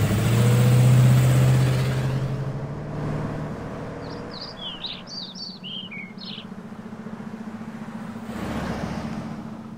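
A classic Cadillac convertible's engine driving past, a deep steady hum that swells about a second in and fades away over the next few seconds. Birds chirp briefly in the middle, and a fainter swell of passing noise comes near the end.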